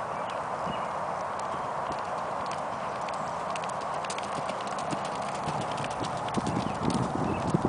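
Hoofbeats of a horse being ridden on a dirt arena, faint at first and growing into dull thuds as the horse comes close near the end.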